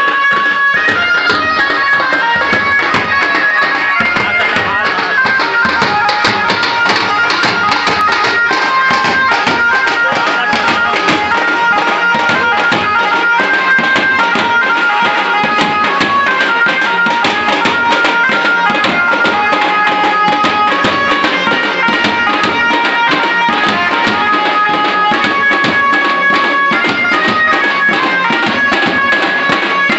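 Procession band music: a reed wind instrument playing a held, stepping melody over fast, dense drumming.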